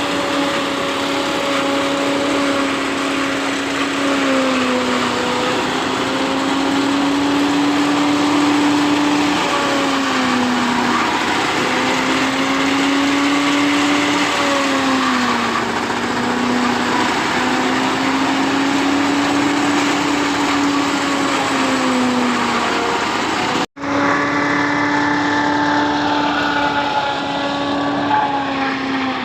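Silage-making machine running steadily with a strong engine hum, its pitch sagging briefly and recovering every five seconds or so. The sound breaks off for an instant about three quarters of the way through, then carries on the same.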